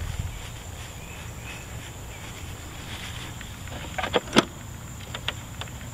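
A steady high-pitched insect drone over a low rumble, with a few sharp clicks about four seconds in and again near the end.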